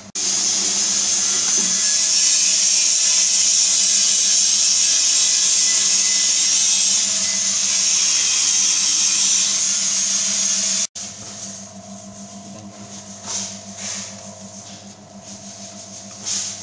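Abon cooking-and-stirring machine running. A loud, steady hiss sits over the machine's hum and stops abruptly about eleven seconds in. After that only the steady hum goes on, much quieter, with a few knocks from the stirring paddles.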